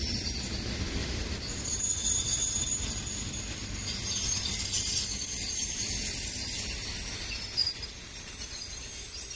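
Green passenger coaches rolling slowly past on the rails as the train pulls in to stop, a steady low rumble with thin high-pitched squeals, most between about two and five seconds in. The sound eases a little near the end as the last coach goes by.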